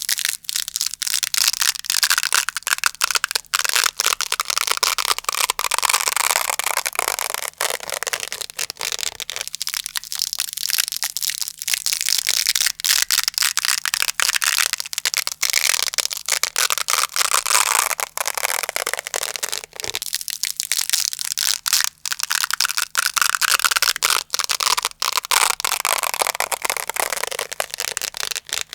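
Velcro hook-and-loop fastener being slowly ripped apart close to the microphone: a continuous crunchy crackle that swells and eases in long pulls of several seconds each.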